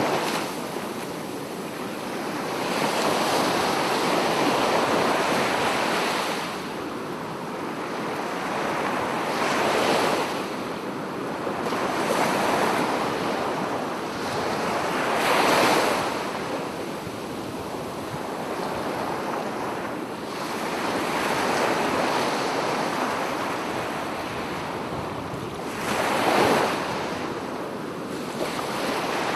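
Sea waves breaking and washing up a sandy beach, the surf swelling and falling every few seconds.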